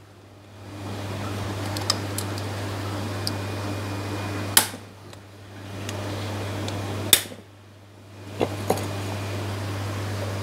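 Sharp metallic clicks and knocks from a stainless steel canister filter as its lid and hose fittings are pressed and fitted into place. The loudest come about halfway through and again a couple of seconds later, with fainter ticks in between, over a steady low hum.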